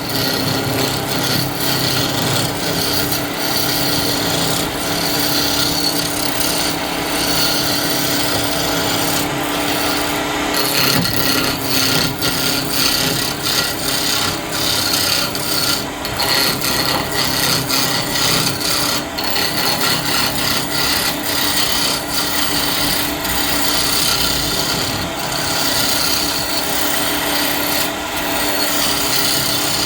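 Wood being worked on a spinning wood lathe: a continuous scraping, rasping noise of a tool against the turning wood, over the steady hum of the lathe motor.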